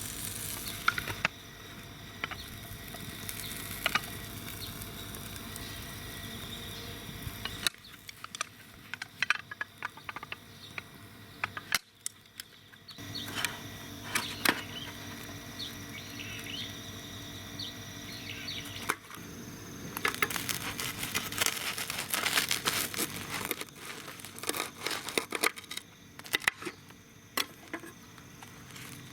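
Cedar firewood fire crackling with scattered sharp pops and clicks; the background changes abruptly a few times, as between separate shots.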